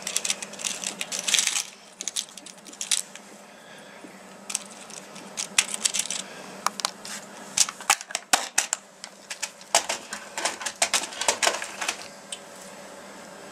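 Loose LEDs with thin metal legs clinking and rattling in a plastic compartment box as fingers rummage through them to pick out red ones: irregular small clicks and jingles that die away near the end.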